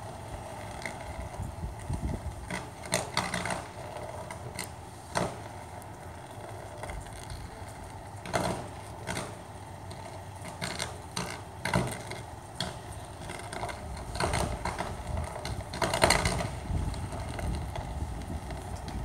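Electrical arcing on a utility pole: irregular crackles and sharp snaps at uneven intervals, the loudest snap near the end.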